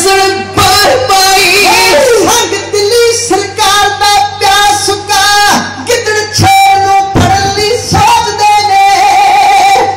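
Kavishri: Punjabi men singing loud, high-pitched verse into microphones, with long held notes that waver in pitch and short breaks between lines.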